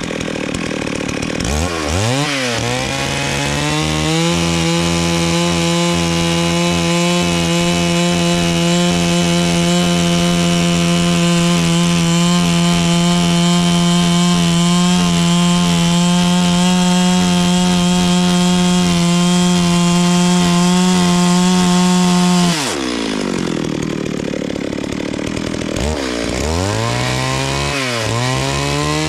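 Two-stroke chainsaw revving up and running at a steady high speed as it cuts into the tree's wood. About twenty-two seconds in it drops back to idle, then revs up again near the end.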